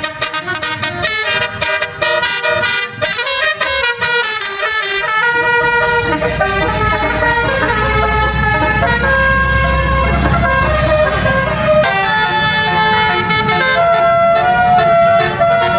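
Basuri telolet bus horn playing a tune in held notes that step up and down in pitch. A low rumble joins about five seconds in and drops away about twelve seconds in.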